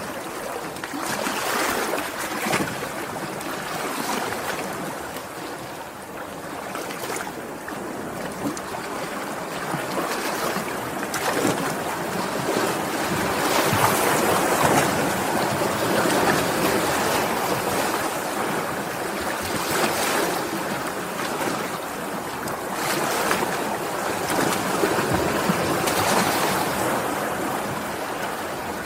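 Sea waves washing and breaking, a continuous rush of water that swells and eases every few seconds, with wind.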